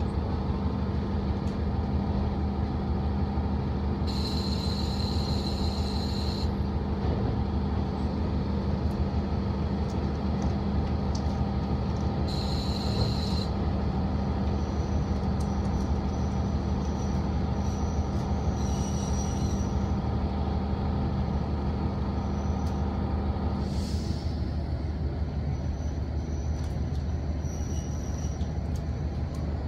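KiHa 48 diesel railcar heard from inside while running: a steady engine drone and wheel rumble, broken by a few brief high-pitched squeals. The steady mid-low hum drops away about three quarters of the way through.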